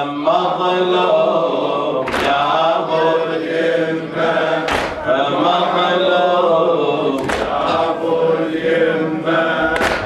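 Men chanting a latmiya, an Arabic mourning chant, with a loud unison chest strike about every two and a half seconds, four strikes in all.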